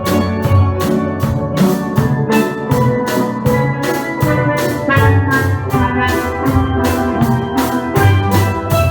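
Steel pan band playing an upbeat tune, many pans sounding together over a drum kit keeping a steady beat.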